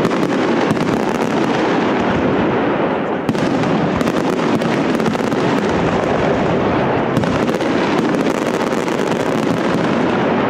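Aerial fireworks display: a dense, unbroken barrage of shell bursts and crackle, the reports running together without pause. A sharper, fizzing crackle joins about three seconds in and thickens again later on.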